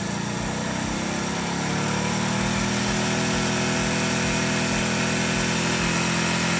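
Honda CB175 parallel-twin engine revving up from idle over about two seconds, then held steady at around 5,000 rpm.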